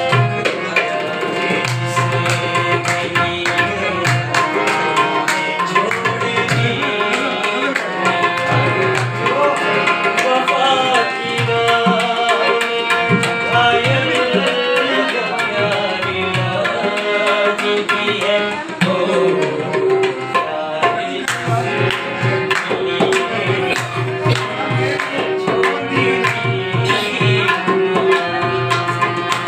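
Harmoniums and a tabla pair playing a song: the harmoniums hold sustained notes and melody over a steady tabla rhythm, with a man singing along near the end.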